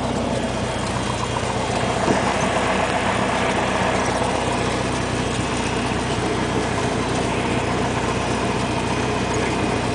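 Cessna 172 single-engine piston aircraft's engine and propeller running in a steady, even drone.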